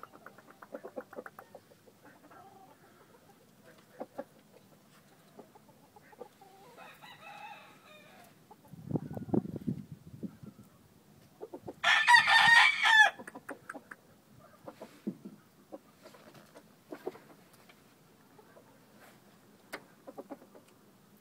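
Roundhead gamecock crowing once, a loud crow lasting about a second just past the middle, with a fainter call a few seconds before it. Small scratchy clicks throughout.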